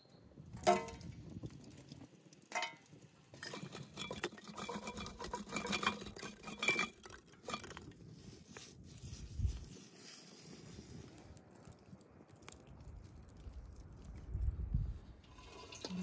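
Metal skewers clinking and clattering against a steel charcoal grill: two sharp ringing clinks in the first few seconds, then several seconds of busy metallic clatter, after which it goes quieter with a couple of dull thumps.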